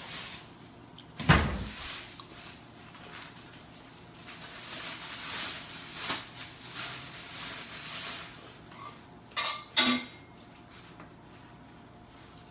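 Metal spoon scraping and clinking in a small plastic cup while eating. There is a heavy thump on the table about a second in and two sharp clacks near the end.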